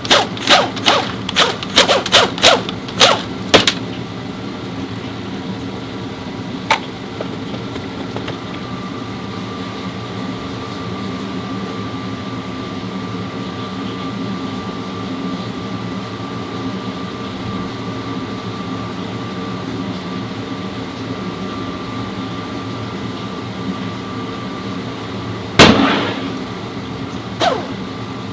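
A car engine running steadily with a low hum. In the first few seconds there is a quick run of sharp clicks and knocks, and near the end one loud thump.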